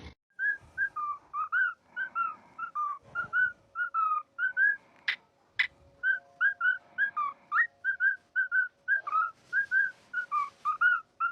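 A parrot whistling a rapid run of short, chirpy notes, about three a second and varying in pitch, with two sharp clicks about halfway through.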